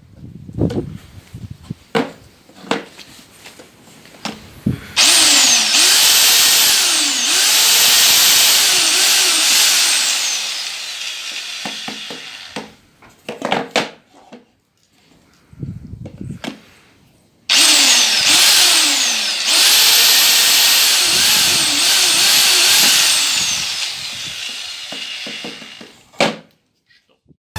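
Parkside PBH 1500 E5 1500 W hammer drill running in two long bursts of several seconds each, its whine rising and falling in pitch. Short knocks and clatter come before and between the bursts.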